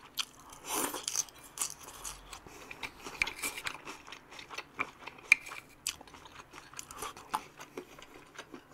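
A person eating close to the microphone, chewing and crunching food with irregular crisp crunches and mouth clicks. One sharper crunch comes a little past halfway.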